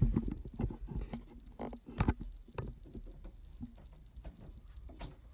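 Irregular soft taps and knocks from footsteps and from the camera being handled as it is carried low across a carpeted floor. The taps are thickest in the first second and thin out after that.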